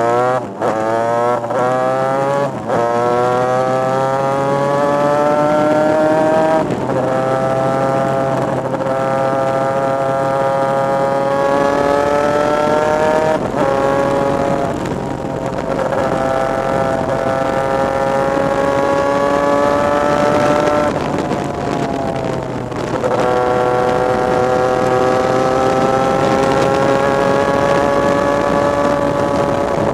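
Superkart's two-stroke racing engine at full throttle, close up on board. Its pitch climbs through several quick upshifts in the first few seconds, then holds high with a few brief drops and recoveries, the longest dip about two-thirds of the way through.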